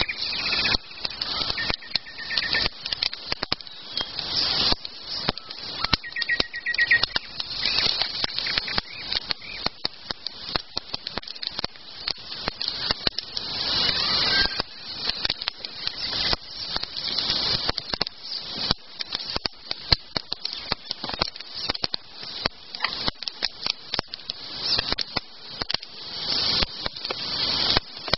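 Campfire crackling steadily with dense, irregular pops and snaps, and a couple of short bird chirps: one at the start and one about six seconds in.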